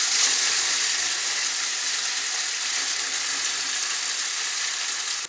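Hot oil sizzling loudly as beaten egg batter is sprinkled into it to fry into a crisp, bubbly covering; the sizzle eases slightly toward the end.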